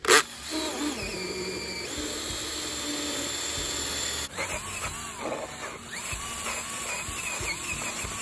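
Cordless drill with a hole saw cutting through a plastic well cap: a loud jolt as it starts, then a steady run, its pitch wavering from about halfway as the saw bites into the plastic.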